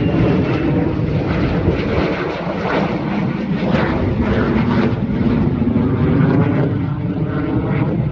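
Loud jet noise from a flight of F-22 Raptors and their Pratt & Whitney F119 turbofan engines passing by, swelling and easing in level as they go.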